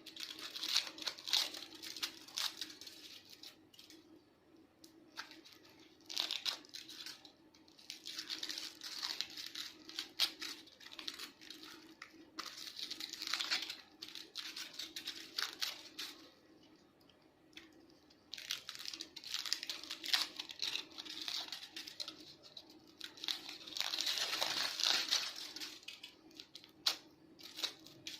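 Aluminium foil being torn and crinkled by hand as it is peeled off a wrapped squishy ball, in irregular bouts of crackling with short pauses.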